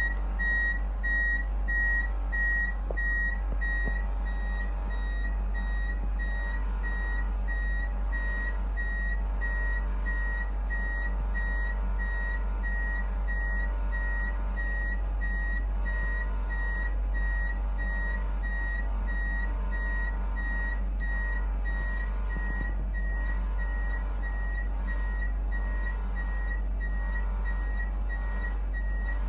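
An articulated lorry's reversing alarm giving steady, evenly spaced high beeps as the lorry manoeuvres, over a steady low hum.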